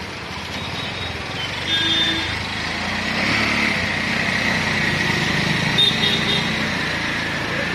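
Motor traffic on a rain-wet street: a motorcycle's engine passes close by and is loudest in the middle, over a steady hiss of tyres and rain on wet tarmac.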